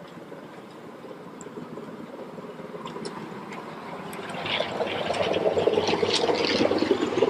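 Ride-on miniature railway train running along the track: a rumbling, rattling noise from the wheels and track with scattered clicks. It grows louder about halfway through.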